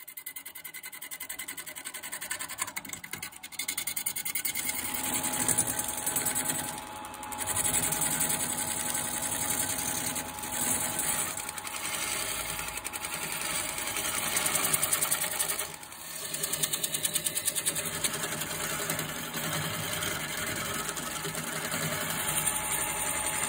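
Wood lathe spinning a rough, off-round tree-stump blank while a hand-held turning tool roughs it down: a steady motor hum under a rapid, even chatter of the tool cutting the uneven wood. The cutting noise eases off briefly a few times as the tool comes off the work.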